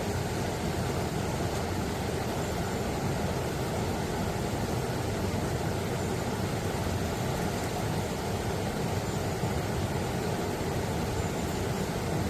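Mountain stream water rushing steadily over rocks, an even unbroken noise.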